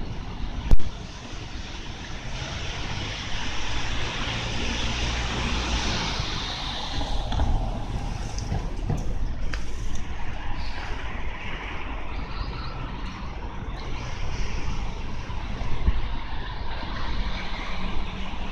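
Road traffic passing on the street, with one vehicle swelling past and fading a few seconds in over a steady low rumble. A single sharp knock just under a second in is the loudest sound.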